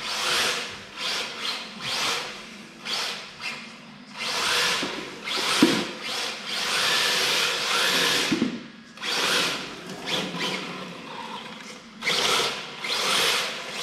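RC drift car on an MST chassis, its hard drift tyres scrubbing and hissing across the tiled floor in repeated surges as it slides sideways through the turns.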